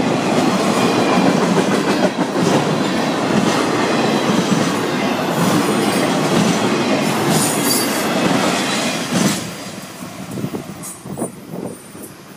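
Florida East Coast Railway intermodal freight cars rolling past: steady wheel rumble and clickety-clack over the rail joints, with brief high wheel squeals. The noise drops off suddenly about nine seconds in as the last car clears.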